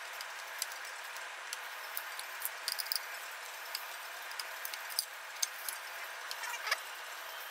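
Screwdriver backing out the small screws that hold an Epson R3000 print head: irregular light clicks and ticks of the tool and screws against metal and plastic, over a steady faint hiss.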